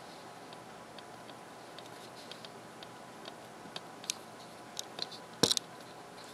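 Hard drive seeking as Mac OS 9.2.2 loads at startup on a Power Macintosh G3 with a 10,000 RPM Fujitsu UltraSCSI drive: faint irregular ticks over the steady whir of the computer's fans and drive, with a louder click cluster about five seconds in.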